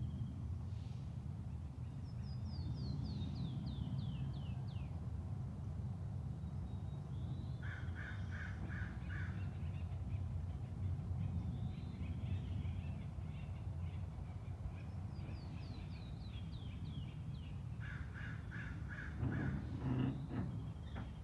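Forest birdsong over a steady low rumble. One bird sings a falling series of about eight quick high notes, twice. Harsh calls repeated in rapid bursts come in twice, and a short louder noise sounds near the end.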